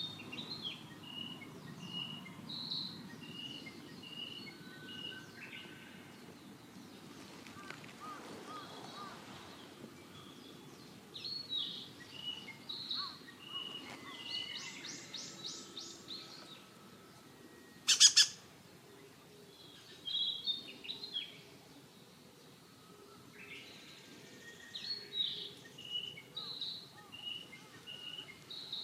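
Small birds chirping: series of short, evenly repeated high notes, with a fast trill about halfway through. A single sharp, loud click about two-thirds of the way in is the loudest sound.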